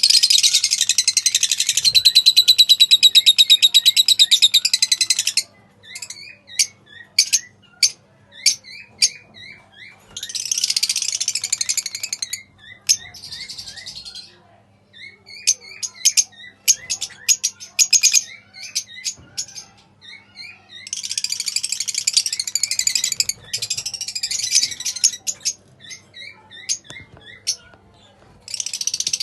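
Lovebirds chattering and chirping: long bursts of rapid high-pitched chatter, the first about five seconds long, separated by runs of short sharp chirps.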